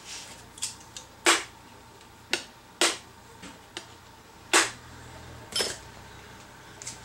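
Sharp knocks of a hard square-cornered object striking a stuck screw-on lid, about five blows with three loudest, to jar it and break the seal so it will twist open.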